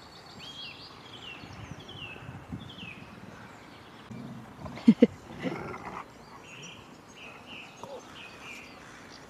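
A dog gives two short, loud yelps in quick succession about five seconds in, with a softer one just after. Birdsong sounds behind, with a run of falling chirps near the start.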